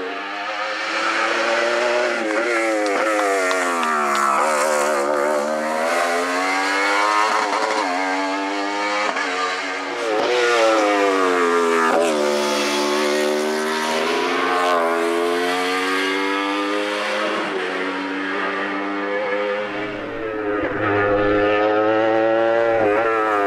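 Wolf Thunder sports-prototype race car's engine at full effort on a hill-climb course, revving up and dropping back in pitch again and again. It grows louder and deeper about 20 seconds in as the car draws near.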